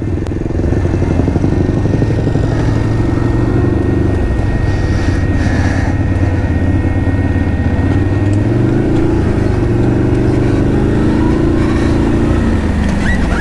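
ATV engine running under way at a steady pace. It revs up a little about eight seconds in and eases off again near the end.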